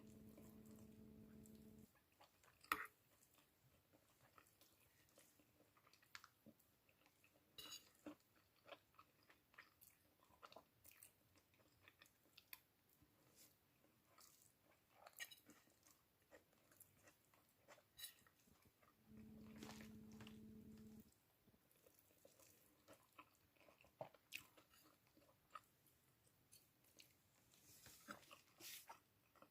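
Quiet close-up chewing of a mouthful of arroz valenciana, with scattered small mouth and utensil clicks. A steady low hum comes in for about two seconds at the start and again about two-thirds of the way through.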